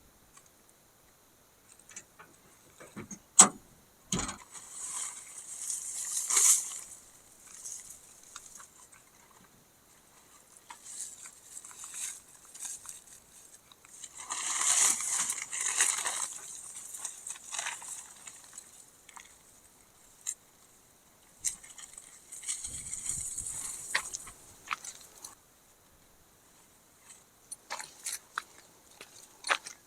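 Rustling and crunching in uneven spells, with scattered clicks and a sharp knock about three seconds in.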